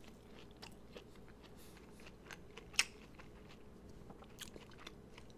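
Close-up biting and chewing of a corn dog nugget: faint, irregular crunches and mouth clicks, with one sharper crunch about three seconds in.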